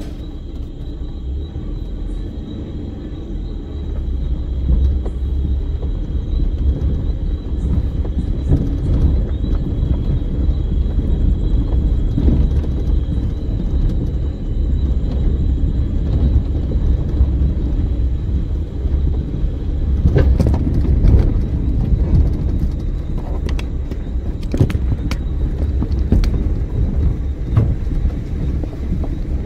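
Maruti Suzuki WagonR being driven slowly, heard from inside the cabin: a steady low rumble of engine and tyres on a rough dirt lane. There are a few knocks and rattles about two-thirds of the way in.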